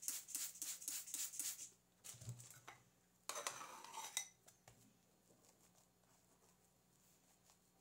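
Cake turntable rattling as it is spun, a quick run of clicks over the first two seconds. About three seconds in there is a short scrape, and after that only faint handling sounds.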